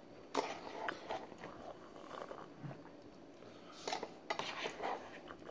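Eating sounds: a few soft, scattered chewing and mouth noises with light clicks of a utensil against a paper noodle cup.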